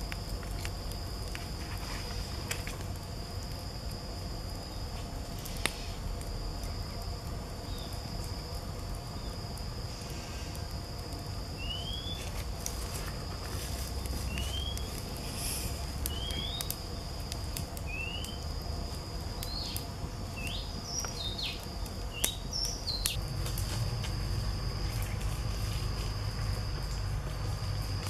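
Outdoor ambience: insects keeping up a steady high-pitched trill, with a bird giving short rising chirps, about a dozen of them, through the middle stretch. A low rumble and a few faint clicks sit underneath.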